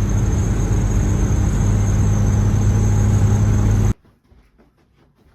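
Loud, steady running noise of a motor or engine, with a strong low hum, cutting off abruptly about four seconds in.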